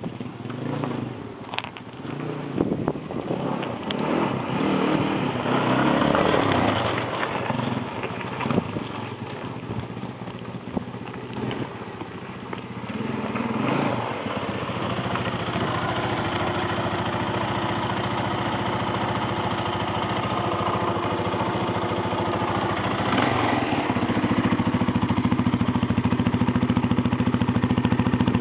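Honda XR200 (ME05) air-cooled single-cylinder four-stroke engine with the inner silencer in its muffler, running unevenly at changing revs for about the first half, then settling into a steady run, a little louder near the end.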